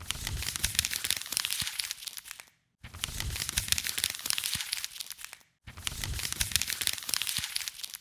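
Crinkling and tearing of a wrapper being crumpled, in three stretches of about two and a half seconds each with brief silent breaks between.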